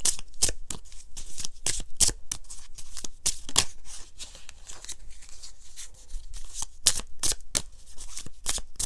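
A deck of tarot cards being shuffled by hand: a quick, irregular run of card flicks and flutters, a little softer for a stretch in the middle.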